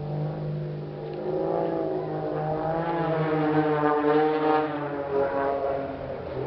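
Propeller engine of an aerobatic airplane flying past, its pitch shifting and loudest about four seconds in, over a steady low hum.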